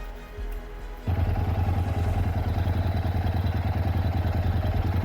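Motorcycle engine running with a steady low rumble and wind noise, cutting in suddenly about a second in. Softer background music comes before it.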